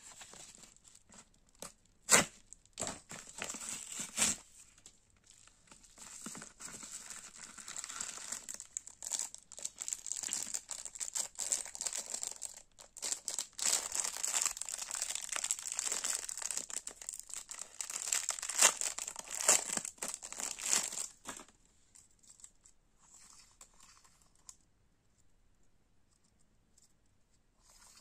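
Plastic packaging being crinkled and torn open by hand. There are a few sharp crackles in the first few seconds, then about fifteen seconds of continuous crinkling.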